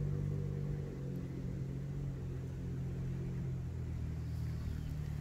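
Small air-cooled two-stroke minibike engine idling steadily at an even pitch.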